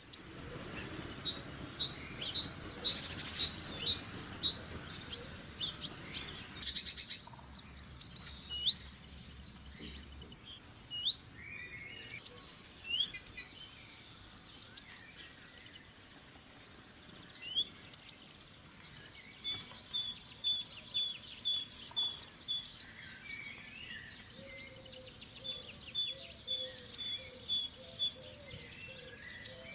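Blue tit singing: a short, high, fast trill, repeated every few seconds, with softer single chirps in between.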